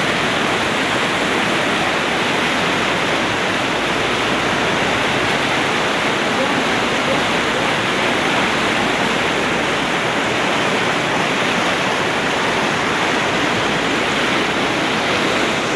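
Fast-flowing river water rushing steadily, with no let-up.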